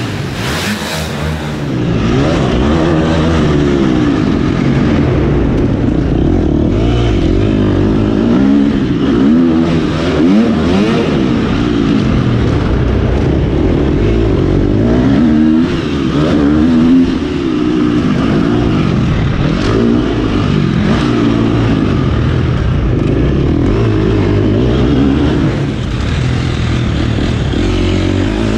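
Husqvarna FC 250 dirt bike's four-stroke single-cylinder engine, revving up and falling back over and over as it is ridden around a tight dirt track.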